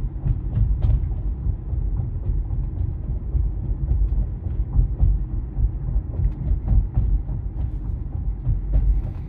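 Steady low road and tyre rumble heard inside the cabin of an electric 2023 Tesla Model Y driving on a paved street, with a few faint ticks.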